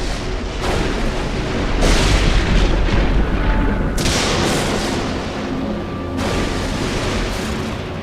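Storm-at-sea sound effects: wind and waves rising and falling in several loud surges with a deep rumble, over background music.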